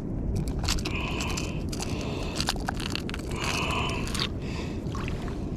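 Short scraping, crunching handling sounds every second or so, some with sharp clicks, over a steady low rumble of water and wind.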